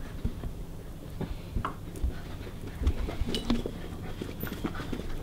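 Two dogs moving about up close: scattered light clicks and soft knocks of their steps and movement, with no barking.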